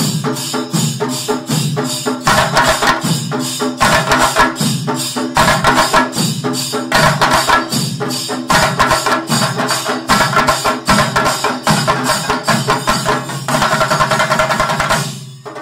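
Background music with a fast, steady percussion beat of sharp strokes, about four or five a second, under recurring sustained chords. It fades out at the very end.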